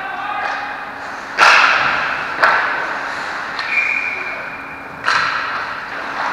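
Hockey puck and stick impacts ringing through an ice rink: a loud hard crack about a second and a half in, a sharper click a second later, and another crack near the end, each trailing off in the arena's echo. In between, a steady high tone like a whistle lasts just over a second.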